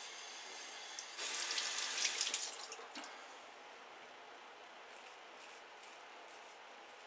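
A sink tap runs briefly, starting about a second in and stopping about a second and a half later. After it, a few faint short scrapes of a shavette blade across lathered neck stubble.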